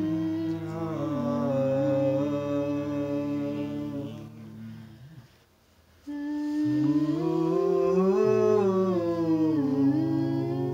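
Several voices humming long held notes together, the pitch bending up and down. The humming fades out about five seconds in and starts again a second later on a new note.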